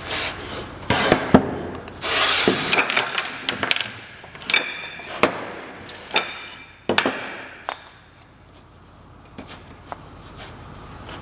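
Woodworking handling sounds: a series of sharp knocks and clatter of wood and tools, several of the knocks with a brief metallic ring, thinning out to a few light clicks after about two-thirds of the way through.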